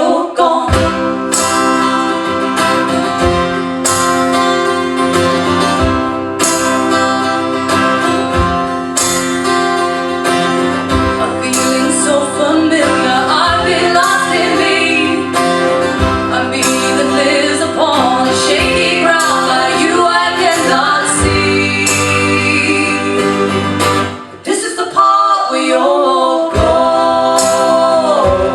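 Live acoustic folk song: strummed acoustic guitar with women singing, with a brief drop in level about three-quarters of the way through before the song picks up again.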